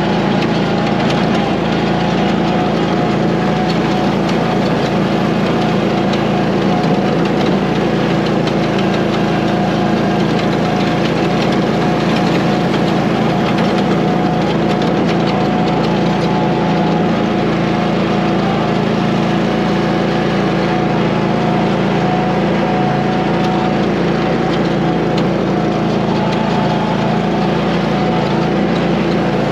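Tractor engine running steadily while the tractor drives over rough ground.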